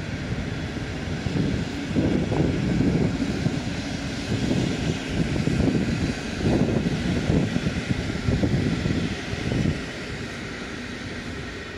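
Passenger coaches of a locomotive-hauled Intercity train rolling past, wheels rumbling on the rails with repeated surges of clatter. About ten seconds in, as the last coach clears, the sound drops to a quieter steady rumble.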